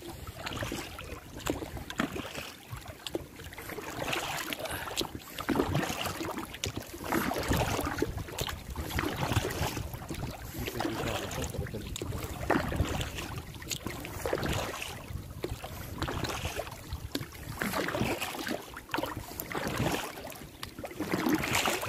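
An inflatable dinghy being rowed: water splashes and laps irregularly against the rubber hull with each oar stroke. Wind buffets the microphone.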